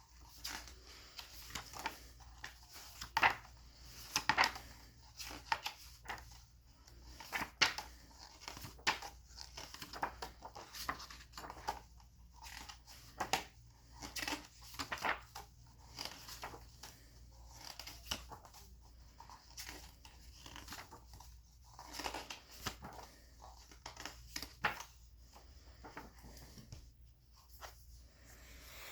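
Paper pages of a small children's book being handled and turned, with irregular rustles and flicks of paper every second or so.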